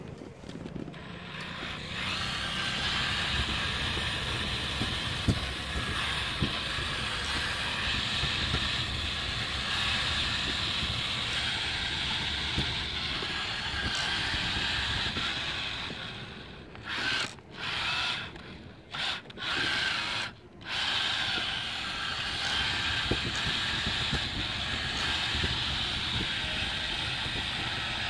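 Small RC motor and gearbox whining steadily under load while it tows a wagon, with a low rumble of wheels rolling over paving tiles. About two-thirds of the way through it cuts out and starts again several times in quick succession.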